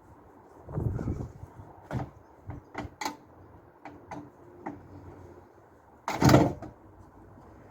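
Knocks and clatter of scrap dishwasher parts being handled and pulled apart: a heavier knock about a second in, a run of lighter taps and clicks, and the loudest clatter about six seconds in.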